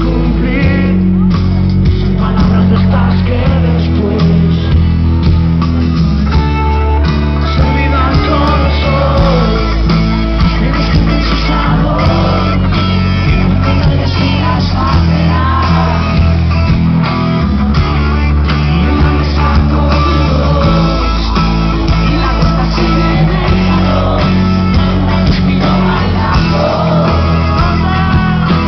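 Rock band playing live with a sung lead vocal, loud and continuous: a ballad with bass, drums and guitar.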